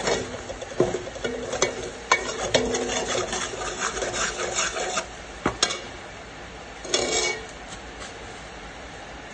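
Metal spoon scraping and stirring a thick cooking mixture in an aluminium pot, with sharp knocks of the spoon against the pot. The scraping stops about six seconds in, with one more short scrape about a second later.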